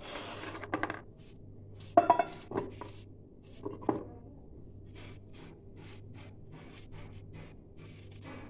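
Kitchen dishes and utensils knocking and clinking, with several sharp clinks in the first four seconds, the loudest about two seconds in, then lighter taps over a low steady hum.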